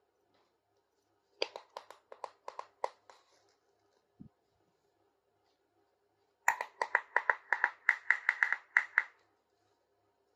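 Two quick runs of tapping clicks from small plastic toy kitchen pieces being handled: a short run of about seven taps, then a longer run of about fifteen faster taps with a slight ring to each.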